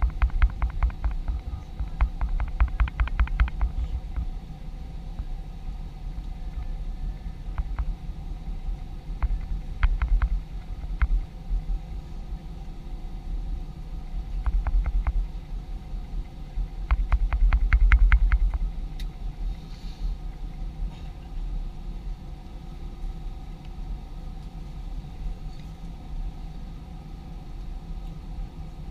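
Boeing airliner taxiing, heard from inside the cabin: a steady low rumble and engine hum at idle, broken by several bursts of rapid knocking and rattling, the loudest a little over halfway through.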